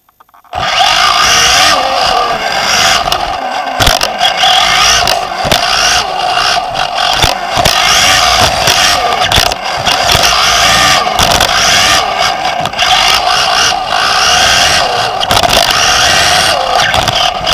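Team Associated B5M 1/10 2WD electric buggy pulling away from the start about half a second in and racing, heard from a camera on the car: motor whine rising and falling with the throttle over a steady rush of drive and tyre noise, with many sharp knocks.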